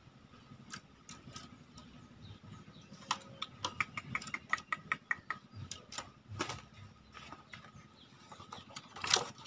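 Handling noises around a green junglefowl hen, with clicks and, about four seconds in, a quick run of about ten short chirp-like notes. Near the end comes a louder burst of rustling and knocking as the hen is pushed into a bamboo cage.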